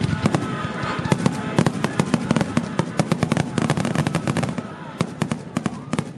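Fireworks crackling at close range: a dense run of sharp pops, many a second, thinning out and getting quieter over the last second or so.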